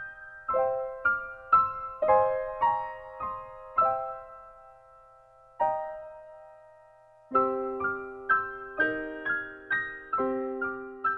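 Soundtrack music: a solo piano playing single struck notes that ring and fade, pausing briefly near the middle, with lower notes joining in the second half.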